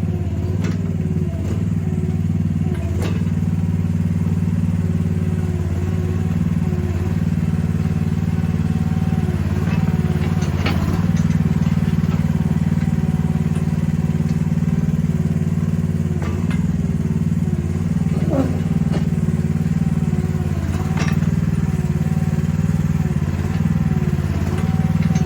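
Chinese mini excavator's engine running steadily while the machine digs and moves dirt, with a higher tone that bends up and down as the arm is worked and several sharp clanks spread through.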